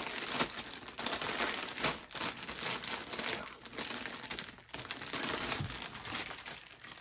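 Plastic snack-chip bags crinkling and rustling as they are handled, shuffled and picked up, in irregular crackly bursts.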